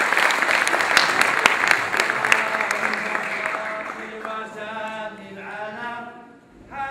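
Audience applause, loud at first and dying away over about four seconds, after which a voice starts singing in held, wavering notes.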